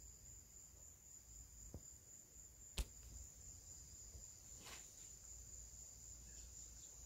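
Faint, steady high-pitched trill of crickets, with a single sharp click about three seconds in and a soft rustle near five seconds.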